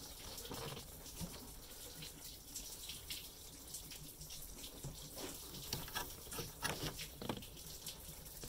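Faint, irregular light clicks and knocks of an aluminium thermostat housing being handled in an engine bay.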